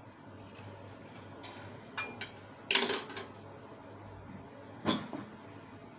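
Kitchen utensils being handled and set down. There are two light knocks about two seconds in, a louder clatter just under three seconds in, and another knock near five seconds, over a low steady hum.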